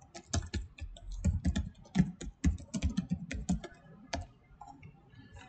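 Typing on a computer keyboard: a quick run of keystrokes for about four seconds, thinning out near the end.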